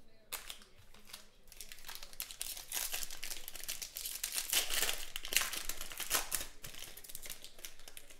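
Foil wrapper of a Panini Prizm football card pack crinkling and tearing as it is ripped open and peeled off the cards, a run of quick crackles that is loudest in the middle.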